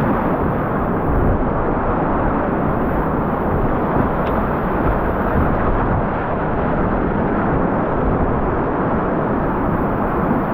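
Fast, continuous whitewater rapids of the North Fork Payette River running at about 2440 cfs: a loud, steady rush of water with no breaks.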